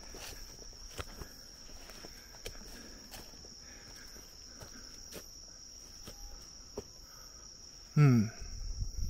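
Night insects chirring steadily on one high note, with footsteps crackling on leaf litter and twigs. About eight seconds in, a man gives a short, loud grunt that falls in pitch.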